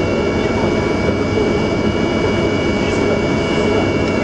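The An-124 Ruslan's four Progress D-18T turbofans running at taxi power, heard from inside the cockpit: a steady, unbroken rumble and hiss with a couple of thin, steady high tones over it.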